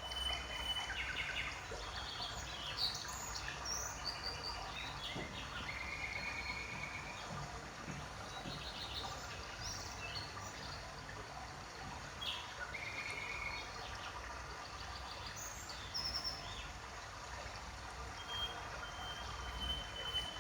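Birds chirping and calling on and off, short whistled notes and quick trills, over a low steady background rumble. A thin steady high tone sounds at the start and again near the end.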